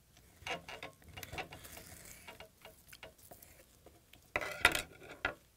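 Kitchen knife cutting raw stingray on a wooden cutting board: a run of small ticks and scrapes as the blade goes through the flesh and meets the board, with a louder cluster of knocks and scrapes near the end as the cut pieces are handled on the board.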